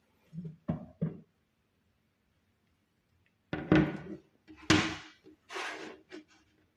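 Kitchen handling noise: three soft knocks about a second in, then three louder scraping, clattering sounds a few seconds later, the first two the loudest.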